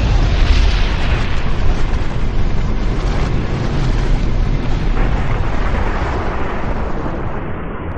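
Explosion-like sound effect: a long, loud roar of noise over a deep rumble, loudest in the first second or two and then holding steady.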